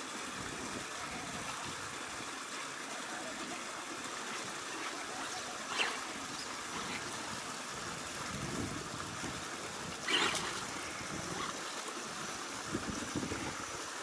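Shallow stream running and trickling over rocks, a steady wash of water, with two brief sharp splashes or knocks about six and ten seconds in.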